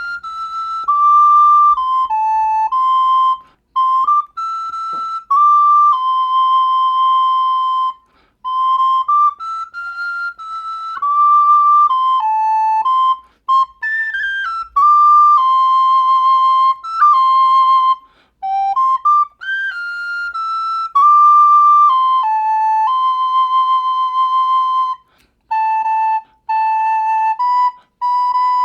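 Soprano recorder playing a slow melody one note at a time, in phrases broken by short pauses for breath.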